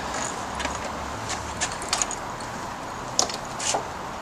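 A DJ controller and its dangling cables being handled and lifted out of a car's back seat: scattered light clicks, knocks and rattles, the sharpest pair a little after three seconds in.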